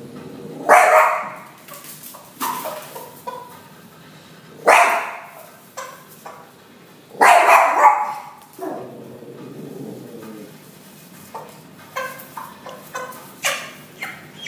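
Small dog barking at hens: loud single barks a few seconds apart, about three in all, with softer sounds in between.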